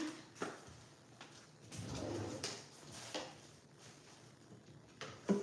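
Faint, scattered kitchen handling sounds: a few light clicks and knocks, with a louder knock near the end.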